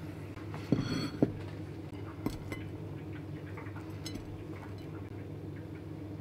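Plates knocking and clinking as they are moved and set down on a counter: two sharp knocks about a second in, then a few lighter clicks, over a steady low hum.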